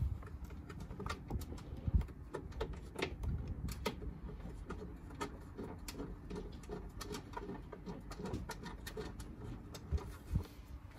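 Scattered light clicks and knocks of hands threading a bolt and nut finger-tight into a metal battery tray bracket in an engine bay, with a dove cooing in the background.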